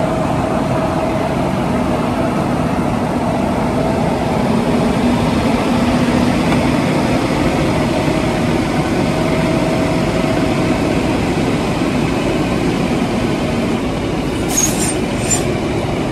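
Fendt tractor's diesel engine running steadily, rising a little midway, as the tractor is moved up so its rear wheel sits on a wheel-weighing load cell. A few short, high clicks near the end.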